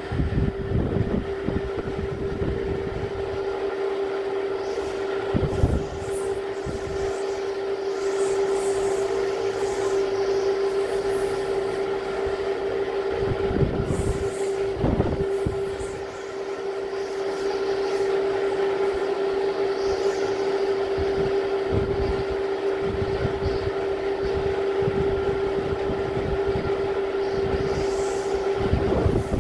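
Typhoon-force wind gusting, buffeting the microphone in repeated low rumbling blasts that swell and ease, over a steady droning hum.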